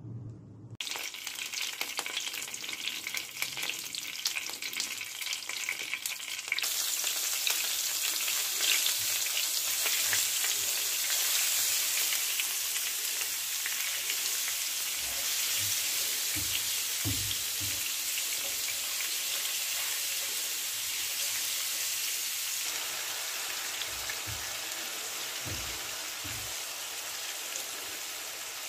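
Oil with ground spices and spice paste sizzling and frying in a karahi while it is stirred. The sizzle starts about a second in and gets louder about six and a half seconds in, with a few low thuds later on.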